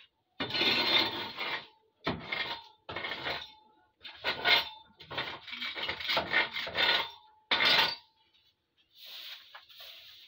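Duck manure and old straw being scraped up off a shed floor in about eight rough scraping strokes, followed by a fainter rustle near the end.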